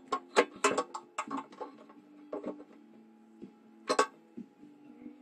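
Small metallic clicks and taps of a tool and spring against saxophone keywork while a blued needle spring is fitted: a quick run of clicks in the first second and a half, a few more about two and a half seconds in, and one sharp click about four seconds in.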